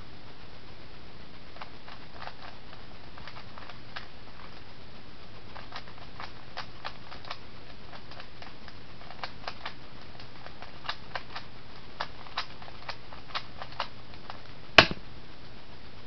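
Rubik's Cube being turned fast in the hands: irregular plastic clicks of the layers twisting, coming in quick clusters, with one much louder sharp clack near the end. A steady hiss runs underneath.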